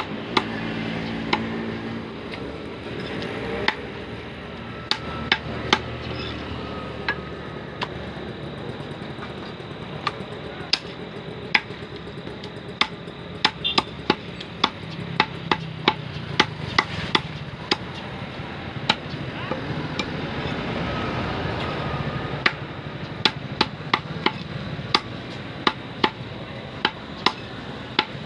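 Heavy cleaver chopping chicken on a wooden log chopping block: sharp knocks of the blade striking through meat and bone into the wood, coming irregularly, sometimes several in quick succession.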